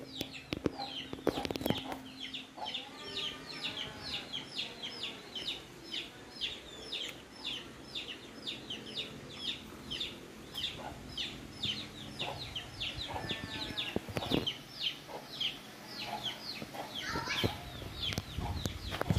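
A bird's short, high chirps, each sliding down in pitch, repeated steadily about four times a second.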